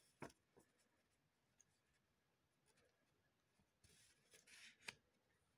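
Near silence, with faint handling sounds from a sheet of drawing paper held in the hands: a soft tap just after the start, then a brief rustle and another tap near the end.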